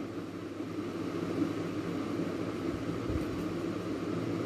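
Steady low hum and hiss of background room noise, with one soft low bump about three seconds in.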